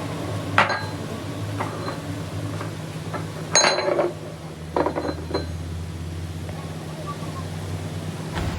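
Metal parts or hand tools clinking and knocking against metal a handful of times, each strike ringing briefly, over a steady low machine hum.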